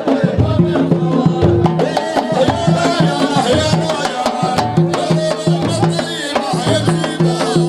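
Arabic folk music with a steady, repeated drum beat under a melody.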